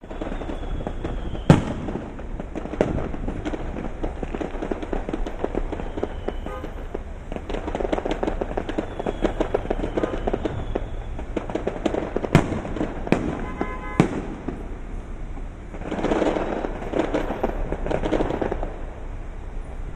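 Fireworks going off: a steady crackle of many small bursts, broken by a few sharp, loud bangs, the loudest about a second and a half in and two more near the twelve- and fourteen-second marks.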